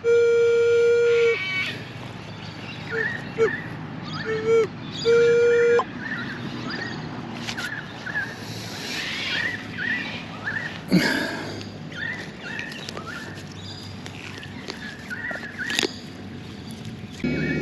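A metal detector sounds a steady target tone for about a second, then gives several shorter beeps a few seconds in. Digging and scraping follow, with a few sharp knocks, over a run of short repeated chirps.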